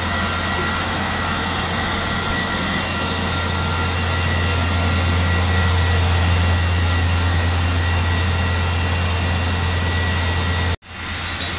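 Large engine running steadily at idle: a deep, even hum under a wash of noise, with a thin steady whine above it. The sound cuts out abruptly for a moment near the end.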